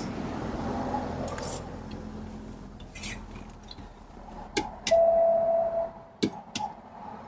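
2016 BMW X5 warning chime: one steady electronic tone of about a second, a little past the middle, among a few sharp clicks, over a low hum that fades in the first couple of seconds. The warnings include lost communication, raised after the engine ground was disconnected and the engine shut off.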